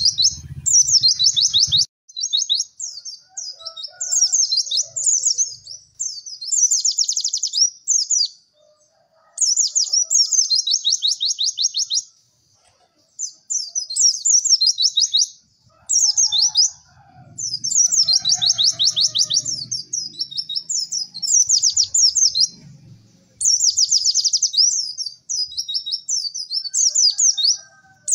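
White-eye (pleci) singing its "cek cek werr" song: fast, high chattering trills in phrases of one to two seconds, each followed by a short pause.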